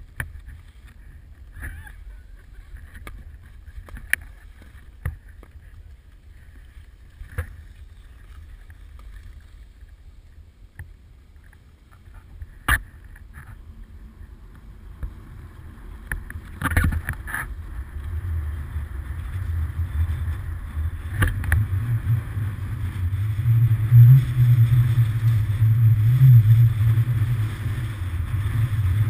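Scattered sharp clicks and knocks from the hand-held camera pole, then, about halfway through, a growing low rumble of wind on the camera microphone with the hiss of skis sliding on snow as the skier sets off downhill, loudest near the end.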